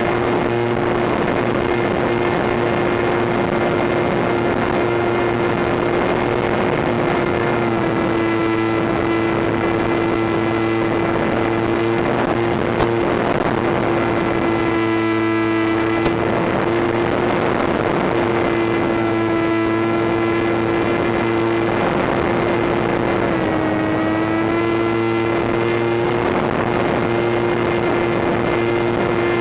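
Brushless electric motor and propeller of a HobbyKing Bixler RC plane in flight, heard from a camera on the airframe: a steady whine over wind rush, its pitch dipping slightly about eight seconds in and again later.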